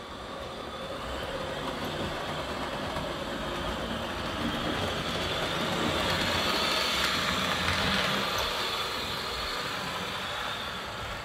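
Vintage 1970s Rivarossi HO-scale 2-8-4 Berkshire model steam locomotive running along the track, freshly serviced and tuned up. Its running noise grows louder as it passes close by around seven seconds in, then fades.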